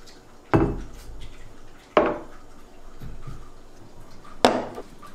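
Three separate knocks of hard objects being set down on a wooden table, a stainless Stanley tumbler among them. The first comes about half a second in, the next about 2 seconds in and the last near the end, each ringing briefly.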